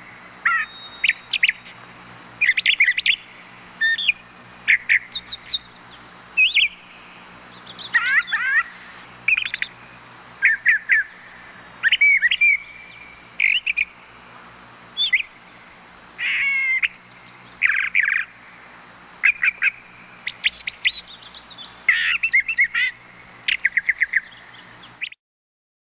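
Brown thrasher singing: a long run of short, varied, whistled and chirping phrases with brief pauses between them, stopping shortly before the end.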